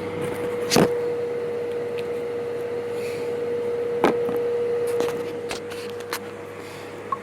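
A few sharp clicks and knocks from a plastic syringe being fitted into a shock-oil bottle and handled, over a steady electrical hum.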